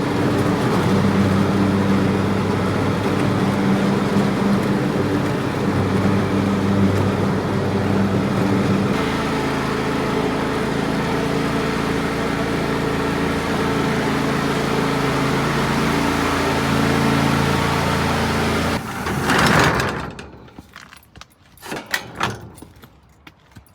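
A vehicle engine running steadily; its pitch steps down about 9 seconds in, and it cuts off suddenly near the end, followed by a brief rushing burst and a few faint knocks, like a door.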